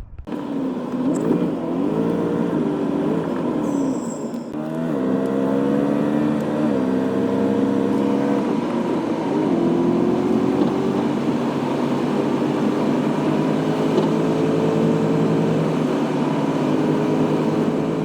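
Vehicle engine running while driving, its pitch climbing as it accelerates and dropping back a few times as it shifts gears, then holding nearly steady at cruising speed over steady road noise.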